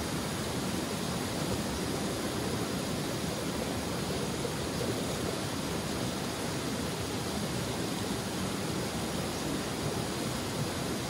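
Forest stream flowing, a steady, unbroken rush of water.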